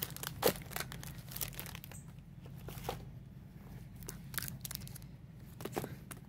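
Clear plastic packaging crinkling and rustling in irregular crackles as wrapped items are picked up and shifted, the loudest about half a second in.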